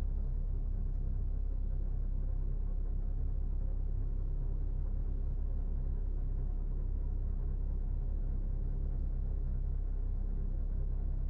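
Low, steady drone from a film soundtrack, held at an even level without change.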